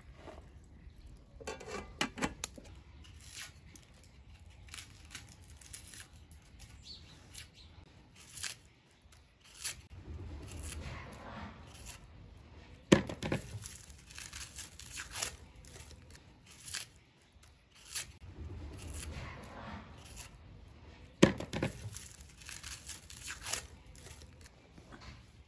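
Dry, papery onion skins being peeled and scraped off with a knife: scattered crackling, tearing and small clicks. Two sharp knocks, one a little past the middle and one near the end, are the loudest sounds.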